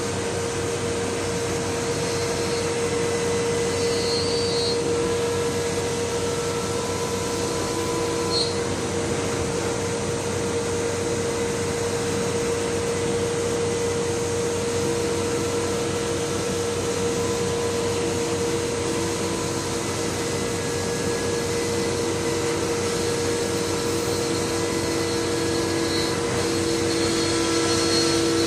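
Castaly PRO 510 CNC router running, with a steady whine over a continuous rushing noise and fainter tones that come and go.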